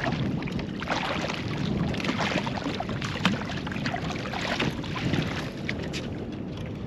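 Water splashing and slapping against a fishing kayak's hull, with wind buffeting the microphone and scattered small knocks and splashes.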